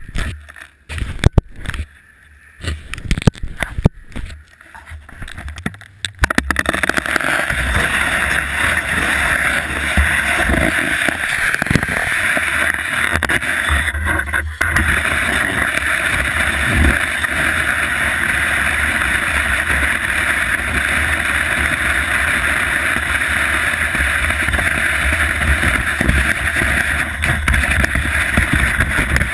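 Scattered knocks and bumps for about six seconds, then skis on a towed surface lift start sliding steadily over packed snow, a continuous rushing hiss with a low rumble of wind on the camera microphone.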